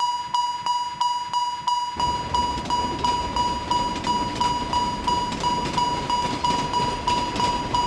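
Japanese railroad crossing warning bell ringing its "kan-kan" at about three strikes a second, with the rumble of a passing train joining in about two seconds in.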